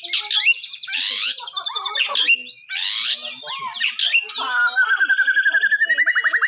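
White-rumped shama (murai batu) singing a fast, varied song of sweeping whistled notes. About four and a half seconds in, it breaks into a rapid run of repeated notes, about a dozen a second, that climbs steadily in pitch.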